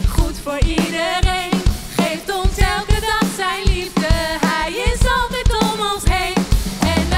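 Worship band playing an upbeat song: a voice singing Dutch lyrics over a drum kit keeping a steady beat.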